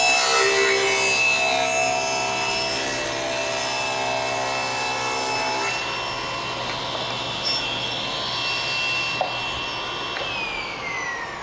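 Table saw ripping a 30-degree bevel along a long board of western red cedar. About halfway through the cut ends and the blade spins free with a steady whine. Near the end the saw is switched off and the whine falls as the blade coasts down.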